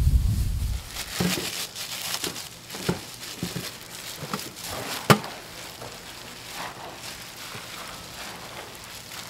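Gloved hands tossing and mixing a big stainless-steel bowl of japchae glass noodles and vegetables in sauce: irregular crackly rustling with scattered clicks, the sharpest about five seconds in. A low rumble fades out within the first second.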